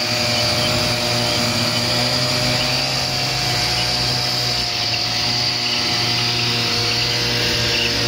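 Two-stroke moped engine held at steady high revs for a burnout, running flat out without any rise or fall in pitch.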